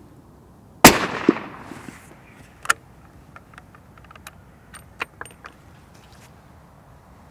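A single shot from a Sako S20 bolt-action rifle in .308, one sharp report about a second in that trails off over about a second. It is followed by several short metallic clicks of the bolt being worked.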